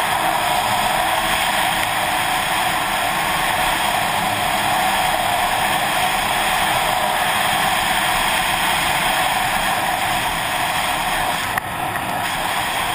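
Snowmobile running at a steady speed, its engine drone blended with wind rushing over a helmet-mounted camera. A brief dip in level comes about eleven and a half seconds in.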